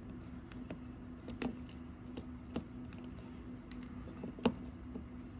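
Small scattered clicks and taps of hands and a tool on the NVMe SSD and its PCIe adapter card as the drive is seated and secured, three of them sharper than the rest, over a faint steady hum.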